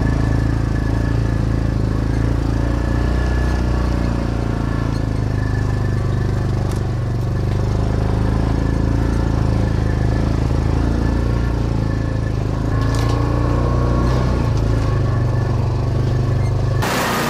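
Side-by-side UTV engine running steadily while driving, a low, even drone. Near the end the sound switches abruptly to a brighter, higher-pitched engine noise.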